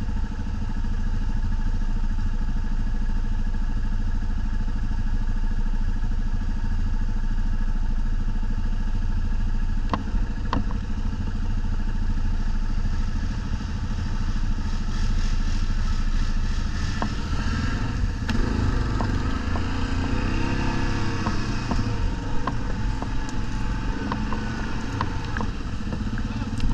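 ATV (quad bike) engine running steadily, then revving up and down from about two-thirds of the way through. A couple of sharp clicks about halfway.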